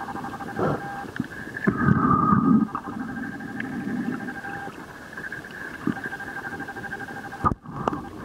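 Muffled underwater recording from a camera: a steady whine of a few pulsing tones, with swells of low rushing water noise (the loudest about two seconds in) and several sharp knocks, and a brief dropout near the end.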